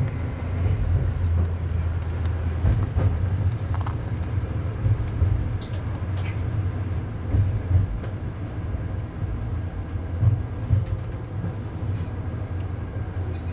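Tsugaru 21 diesel railcar running, heard from inside the car, with a steady low engine-and-running rumble and scattered clicks of the wheels over the track. A brief faint high squeal comes about a second in and again near the end.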